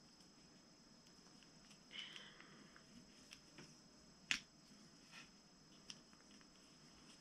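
Faint clicks and a soft rustle of a plastic action figure and its snap-on armor pieces being handled, with one sharper click about four seconds in.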